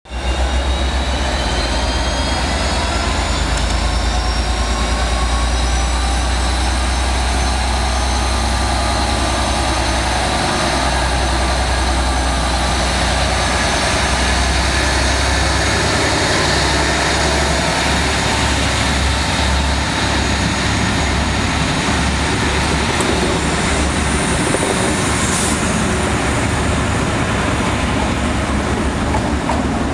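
Diesel locomotive convoy pulling out under power and passing close by. Class 57 No. 57306 leads with its EMD two-stroke V12 working, giving a deep low engine note with a steady high whine over it in the first half. Then a Mk2 coach, 57008 and Class 68 No. 68002, idling on the rear, roll past.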